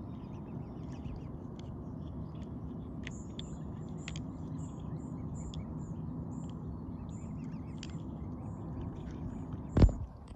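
Mute swans and their cygnets dabbling for food in shallow pond water, with a steady low watery rustle and many short, high bird chirps. A single loud knock comes near the end.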